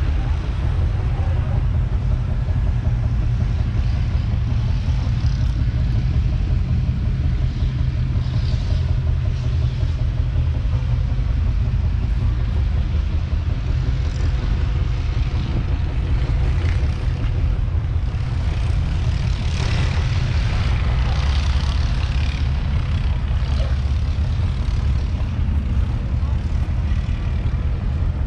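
Valtra T150's 6.6-litre six-cylinder diesel engine idling, a steady low rumble.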